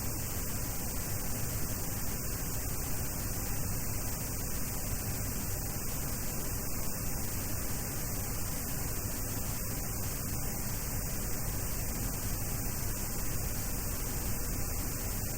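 Steady static hiss with a faint hum on an open headset interphone line.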